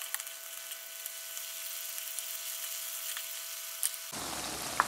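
Vegetable fritters sizzling in hot frying oil in a pan, a steady hiss with many small crackles and pops and a few sharper clicks near the end. The fritters are partway through frying, just starting to turn golden.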